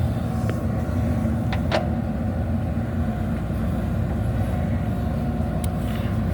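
JCB backhoe loader's diesel engine running steadily under work, with a few short knocks, the loudest about two seconds in.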